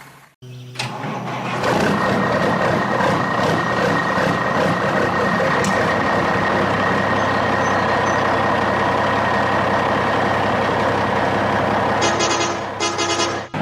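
Steady truck engine sound, with a brief dropout near the start and a fast high-pitched pulsing joining in near the end.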